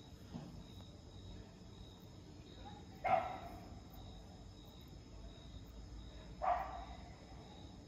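A dog barks twice, about three and six and a half seconds in, each bark short and echoing. A steady chirring of crickets runs underneath.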